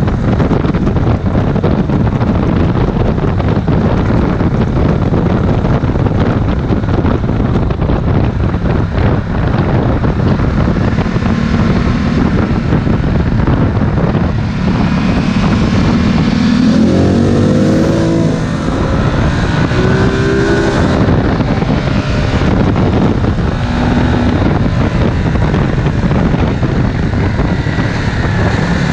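Ducati Multistrada 1260 S's V-twin engine running on the move under heavy wind rush on the microphone. In the second half the revs climb and drop several times.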